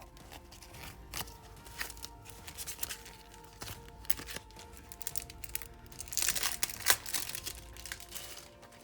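Packaging crinkling and rustling as it is handled, in irregular crackly bursts, busiest and loudest about six to seven seconds in. Quiet background music plays underneath.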